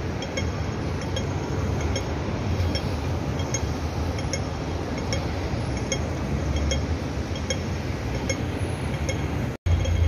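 Street ambience: a steady rumble of traffic and wind on the microphone, with faint, bright clinking ticks repeating roughly once or twice a second. The sound cuts out for a moment near the end.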